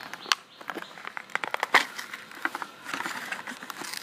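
Plastic blister and cardboard packaging of a Hot Wheels toy car being worked open by hand: a run of irregular sharp crackles, clicks and crinkles.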